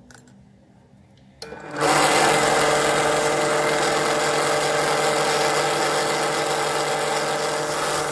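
A click, then about two seconds in a drill press starts and runs steadily, its 3.2 mm twist bit cutting into a brass block: drilling the tap hole for a 4 mm thread.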